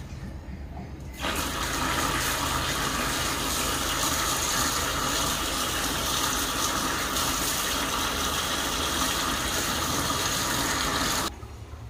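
Water from a wall tap running steadily over a catfish being rinsed by hand and splashing into a metal basin. It starts suddenly about a second in and cuts off near the end.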